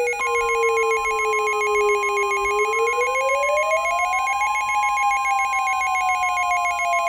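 Simulated Emergency Alert System attention signal: a steady single-pitch warning tone like NOAA Weather Radio's alarm tone, layered with a rapid warbling trill and a siren-like tone that slides slowly down, rises about two and a half seconds in, then falls again.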